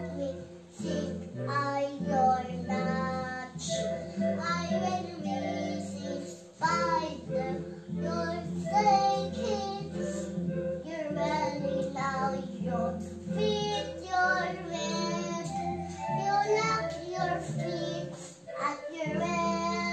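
A young girl singing along while playing a Yamaha Electone electronic organ, with low organ notes held in long blocks under her wavering voice.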